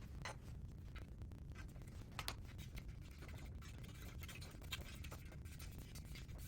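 Faint scratching and light clicks of hands working on a unicycle wheel's tire and rim, with a few slightly sharper clicks spread through.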